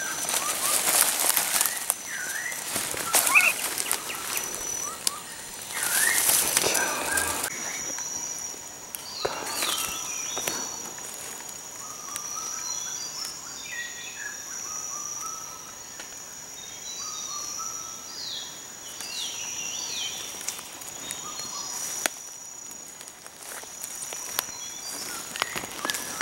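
Dry bamboo leaf litter crunching and rustling underfoot for the first seven seconds or so, then forest ambience: birds giving many short falling chirps over a steady high-pitched drone.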